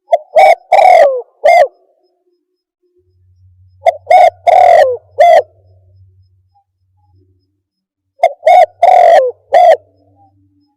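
Spotted dove (terkukur) cooing phrase used as a lure call, repeated three times about four seconds apart. Each phrase has four coos, the third longer and falling in pitch. It is played loud.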